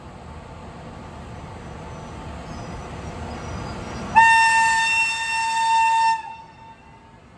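Rumble of an approaching train growing louder, then one long blast on an E402B electric locomotive's horn, a single steady note lasting about two seconds that cuts off sharply.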